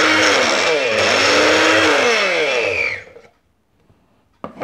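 Wonderchef Nutri Blend personal blender's 400-watt motor running at full speed. Its pitch dips and recovers around the middle, then the motor is switched off about three seconds in and winds down to a stop. A short click near the end.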